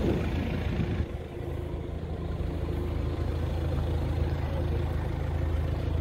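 An engine idling steadily, a low even hum, with a brief rustle in the first second.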